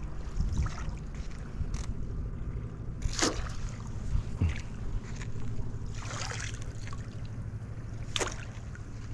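Low, steady hum of a passing motorboat's engine, with a few short, sharp sounds over it, the loudest about three seconds in and another about eight seconds in.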